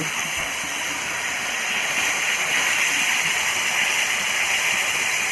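Masala-marinated fish frying in hot oil in a large pan: a steady sizzling hiss that grows a little louder about two seconds in.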